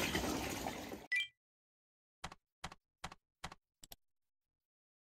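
Water splashing in a pool under background music, cut off about a second in; then a brief high tone and five keyboard-key clicks about 0.4 s apart, a typing sound effect.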